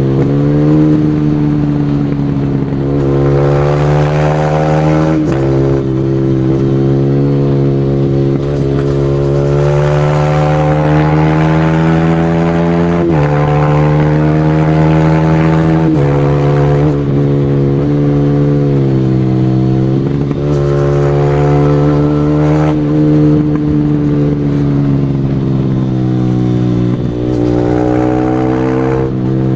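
Single-cylinder motorcycle engine ridden hard, running loud and steady. Its pitch climbs under load and drops sharply at each gear change, about five times.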